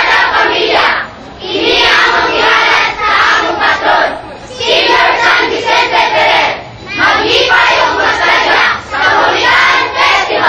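A large crowd of voices shouting together in unison, in phrases a couple of seconds long with short breaks between them, like a group chant or cheer.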